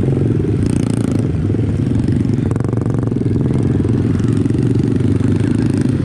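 Pit bike engine running steadily at a fairly constant speed.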